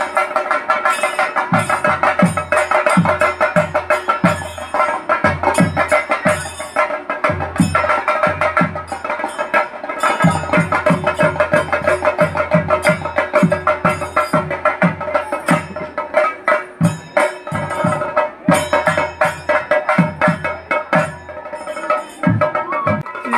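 Chenda drums of a theyyam ensemble played with curved sticks, fast rhythmic strokes several a second, with a steady ringing tone held above the drumming.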